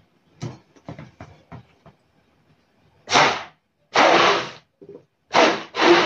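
Electric hand blender run in short bursts about half a second long, starting about three seconds in: the motor and blades churn milk and banana in a steel pot, switched on and off about five times.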